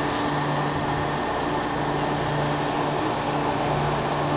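Steady machine hum over a constant hiss, with a low drone that fades in and out every second or so.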